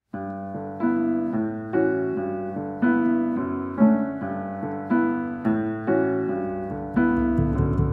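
Piano music starting suddenly out of silence, with chords struck about once a second and fading between strikes.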